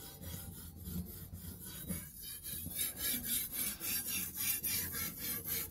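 Steel kitchen knife blade stroked back and forth across a sharpening stone: a steady run of short, gritty grinding strokes, a few a second, getting louder after about three seconds. The second side of the edge is being worked to raise a burr.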